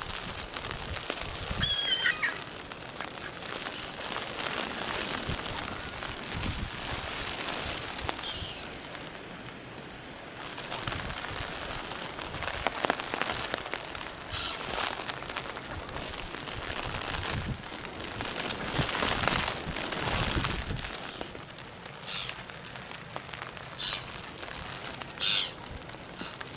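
Mallard ducks on a pond: a steady noisy wash of splashing and wing flapping, with a few short bird calls. The loudest call comes about two seconds in, and several brief ones come near the end.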